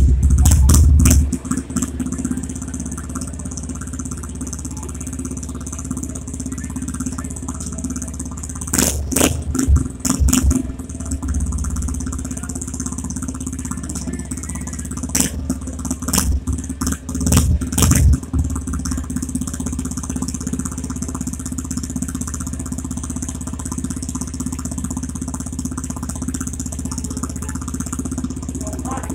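Motorcycle engine idling steadily close by, louder for about the first second. Clusters of rattling clicks come about nine seconds in and again between about fifteen and eighteen seconds.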